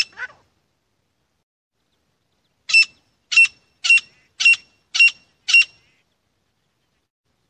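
Grey francolin calling: a clipped note right at the start, then, after a pause, a run of six loud, sharp, high notes evenly spaced about two a second.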